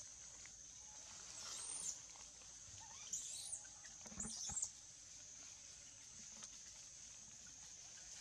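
Steady high-pitched drone of forest insects, with three short high squeaks rising and falling, about two, three and four seconds in.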